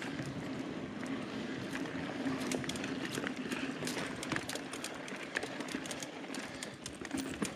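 Mountain bike rolling over a dirt forest singletrack: a steady tyre hum on the dirt, with scattered clicks and rattles from the bike over bumps and roots.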